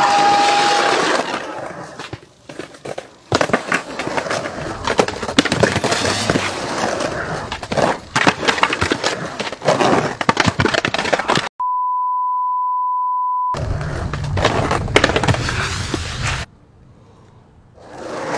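Skateboard wheels rolling on rough concrete, with boards clattering and slapping down on repeated trick attempts and falls. A short bleep at the start and a steady censor bleep about two seconds long about two-thirds of the way through cover swearing.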